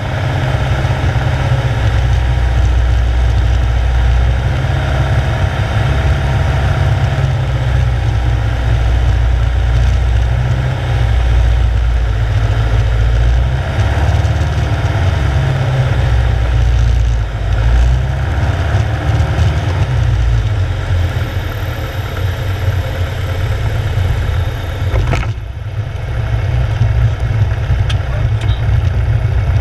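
Single-engine light aircraft's piston engine and propeller heard from inside the cockpit, running steadily on final approach. The engine eases off slightly for the landing, a sharp knock comes near the end, and then the engine runs up again to power for the take-off run of a touch-and-go.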